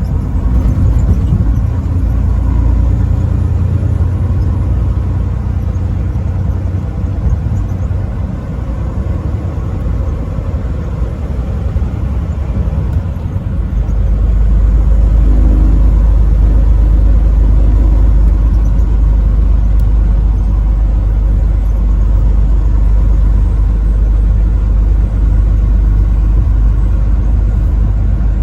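Semi-truck driving at highway speed: steady low engine and road rumble, the deep part growing louder about halfway through.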